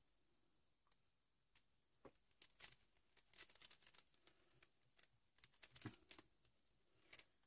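Faint, scattered rustles and soft ticks of fingertips rubbing paint into collaged paper on an art-journal page, coming in small clusters from about two seconds in.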